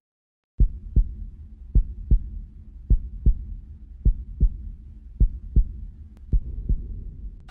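Heartbeat sound effect: six low 'lub-dub' double thumps, a pair a little more than once a second, starting about half a second in over a faint low hum.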